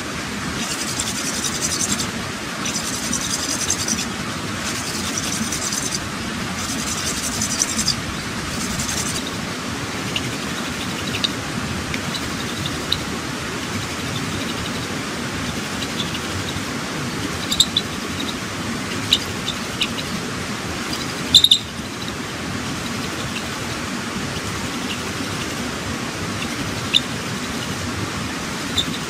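Hand-drill fire making: a wooden spindle twirled between the palms against a wooden hearth board, rubbing in strokes about every two seconds through the first nine seconds, over a steady background hiss. Scattered short chirps and clicks follow, the loudest a sharp click about three quarters of the way in.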